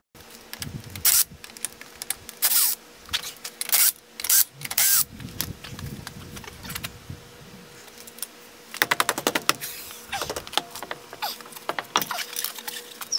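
Hand tools and metal shock-absorber mounting hardware clinking and scraping as a shock's washers, bushings and nut are fitted and tightened. Several short sharp rasps come in the first five seconds, and a run of rapid clicks about nine seconds in.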